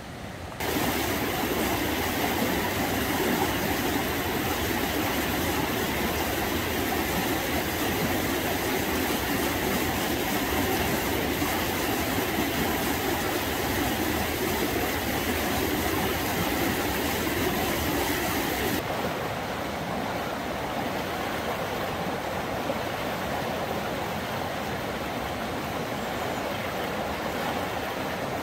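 River rapids rushing in a steady, dense roar of water. The sound jumps louder about a second in and turns duller about two-thirds of the way through, as the shot changes.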